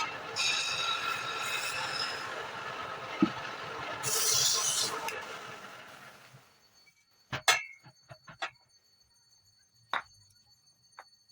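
Wood lathe running, with two stretches of harsher high-pitched cutting noise, then winding down to a stop about six to seven seconds in. A few sharp knocks and clinks follow.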